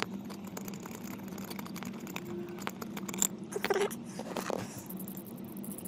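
Light clicks and rattles of hands and tools working plastic wiring connectors and the clutch switch under a dashboard, with a couple of short squeaks a little past the middle, over a steady low hum.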